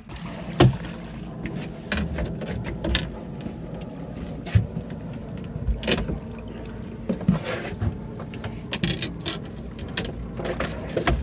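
Irregular knocks, clicks and clatter of rod-and-reel and boat handling while a hooked catfish is fought in, over a steady low rumble.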